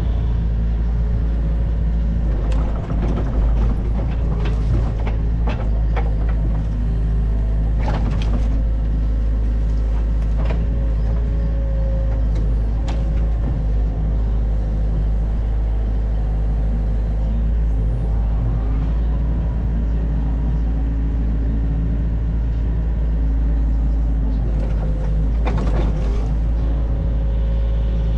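Excavator's diesel engine running steadily under load, with scattered knocks and clanks.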